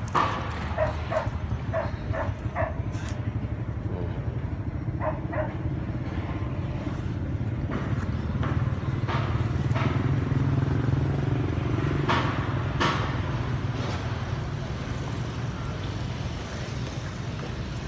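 A dog barking, a quick run of about five barks in the first three seconds and two more around five seconds in, over a steady low engine hum that grows louder in the middle and fades again. A few sharp clicks come later.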